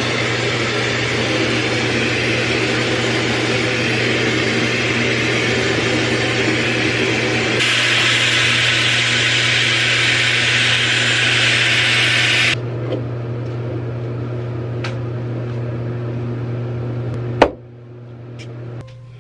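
Hair dryer switching on suddenly and blowing steadily with a motor hum. It steps up to a higher setting about eight seconds in and drops back about five seconds later, then cuts off with a sharp click near the end.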